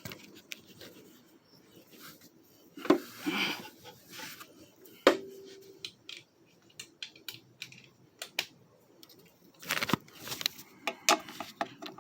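Scattered clicks, taps and rubbing from parts and hand tools being handled on a riding lawn mower during repair, with no engine running. There is a sharper knock about five seconds in with a short ring after it, and a run of quick taps near the end.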